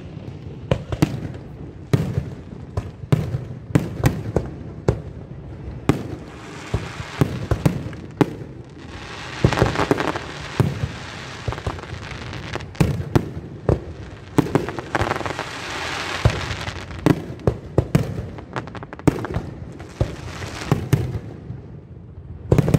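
Fireworks going off: a rapid, irregular string of sharp bangs and pops, several a second, with bursts of crackling hiss from crackle effects partway through.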